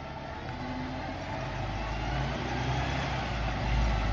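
Motor vehicle running, a steady low engine and road rumble that grows slowly louder.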